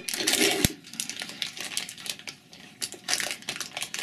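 Plastic wrapper crinkling in irregular bursts as a small individually wrapped cheesecake is unwrapped by hand, busiest at the start and again near the end, with a single light knock about half a second in.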